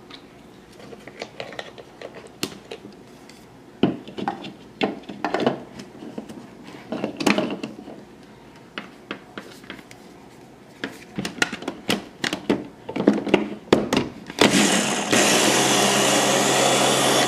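Clicks and knocks of plastic parts being handled and fitted onto a Ninja mini chopper's bowl. About fifteen seconds in, its motor starts and runs steadily, whipping heavy cream on its way to butter.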